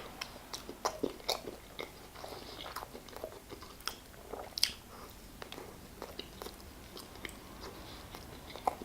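Close-miked chewing: a person eating a chicken burger, with irregular sharp crunching and mouth clicks.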